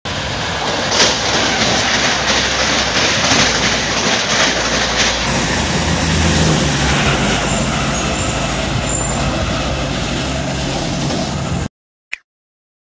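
Loud, steady rushing noise of an Indian Railways passenger train passing at high speed: wheels on rail and wind. It changes character about five seconds in and cuts off abruptly near the end, followed by a single sharp click.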